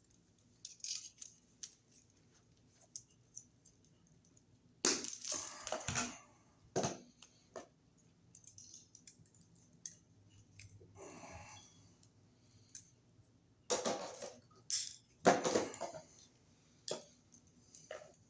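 Electrician's hand tools working electrical wire: scattered clicks and snips with a few louder crunching cuts, as new pigtail wires are cut and stripped.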